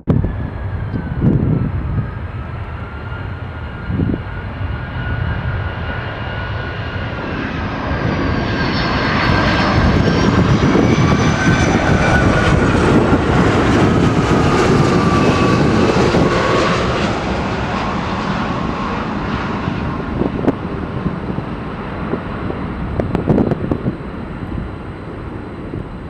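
Boeing 757 jet engines passing close on landing: a rushing jet noise with a high whine whose tones fall slowly in pitch, building to its loudest midway and then fading away. Gusts of wind buffet the microphone.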